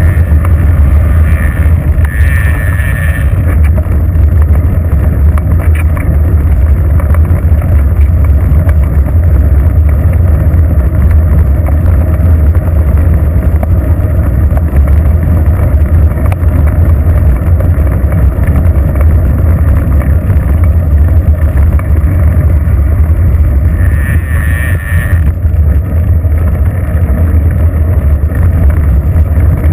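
Steady low rumble of wind buffeting a bicycle-mounted GoPro microphone while riding, mixed with tyre noise on asphalt. A brief thin hiss rises over it twice, near the start and about 24 seconds in.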